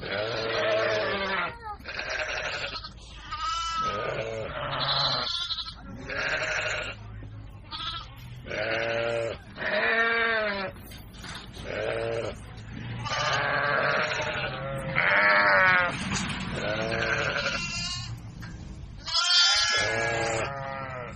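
Baby goats bleating over and over, about fifteen calls in a row, many with a quavering pitch.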